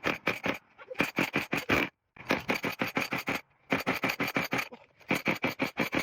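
Homelite Super 2 two-stroke chainsaw being pull-started over and over: about five pulls, each a quick run of rasping strokes as the recoil cord spins the engine over.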